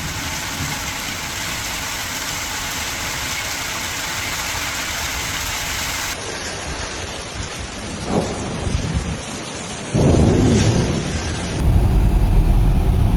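Heavy rain falling in a steady hiss. Partway through, the sound changes abruptly to rain with a loud low rumble that starts about ten seconds in and stays to the end, typical of a thunderstorm.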